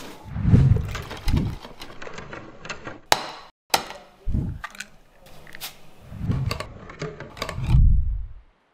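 Close-up kitchen sounds of batter being made in a ceramic bowl: flour pouring in, an eggshell cracking on the rim with sharp clicks a little after three seconds in, then a wire whisk beating. Soft low thumps mark the bowl and utensils being handled.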